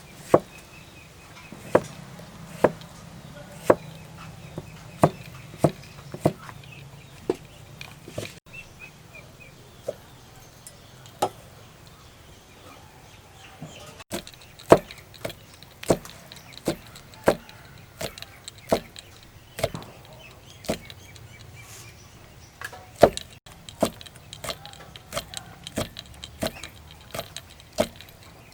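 Kitchen knife chopping on a wooden cutting board: single sharp strikes at an uneven pace, roughly one a second, with fewer strikes for a few seconds in the middle.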